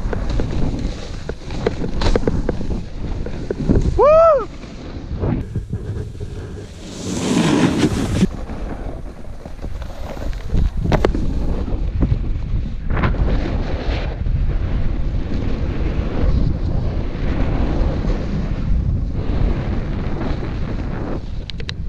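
Wind buffeting a GoPro's microphone while a snowboard runs and scrapes over groomed snow, with a brighter rush of hiss about seven seconds in. About four seconds in comes a short, loud, high-pitched sound that rises and falls.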